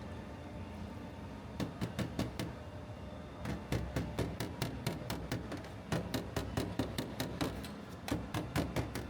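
Rapid light hammer taps, in runs of several strikes at about four to five a second with short pauses between runs, starting about a second and a half in, over a steady low hum.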